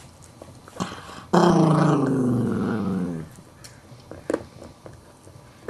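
A Maltese growling over the bone he is chewing, one loud growl lasting about two seconds that sinks slightly in pitch as it goes: guarding his bone from the puppy nosing at his face. Short clicks of teeth gnawing the bone come before and after.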